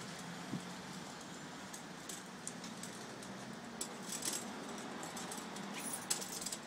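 Street background noise: a steady low hum with scattered light clicks and ticks, more of them in the second half.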